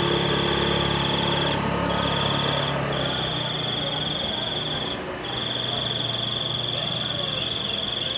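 A high, steady insect-like trill that holds for a few seconds at a time, broken by short pauses twice, over a low hum that weakens about three seconds in.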